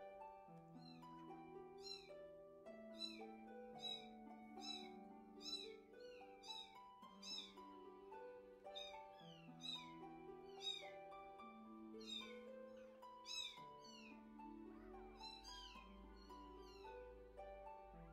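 A young kitten mewing over and over: short, high, falling cries about twice a second. Under them runs soft instrumental background music with a gentle stepping melody.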